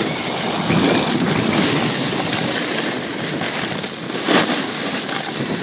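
Wind rushing over the microphone, with skis scraping over packed snow, while skiing downhill at speed. The rushing swells louder about four seconds in.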